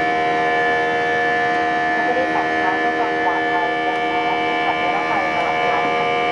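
Airbus A320 cabin noise in the climb after takeoff: the turbofan engines' steady whine of several held tones over a constant rush of air.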